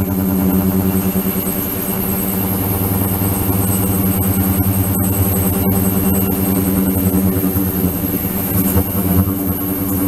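Ultrasonic cleaning tank running, giving a steady hum with a thin high tone above it.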